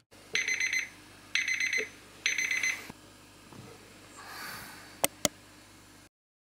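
A morning alarm beeping in three short bursts of rapid high beeps, about a second apart. A soft rustle follows, then two quick clicks a little after five seconds in.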